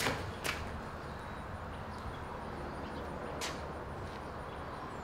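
Outdoor ambience with a steady low rumble, broken by sharp taps from a sidearm disc golf throw on a concrete pad: one right at the start and another about half a second later. A third tap comes about three and a half seconds in.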